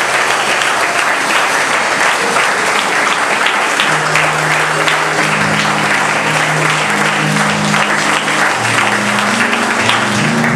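Congregation applauding steadily, and about four seconds in, low sustained instrument notes start playing under the clapping.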